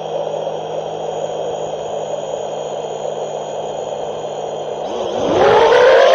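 FPV quadcopter's motors humming steadily at idle after arming, then spooling up about five seconds in with a quickly rising whine that settles into a louder steady tone as the throttle comes up for takeoff.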